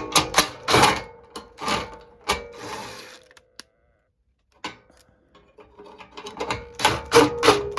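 Ground wire being fastened with a screw on a replacement X13 blower motor: two spells of rapid mechanical clicking and rattling, with a faint steady whine under them, the second spell near the end.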